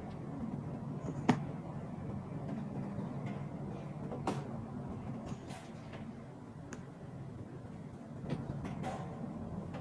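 Handling sounds: a few sharp clicks and taps, the loudest about a second in and another about four seconds in, as fingers move the metal B clasp on a crocodile-embossed calfskin handbag, over a steady low background hum.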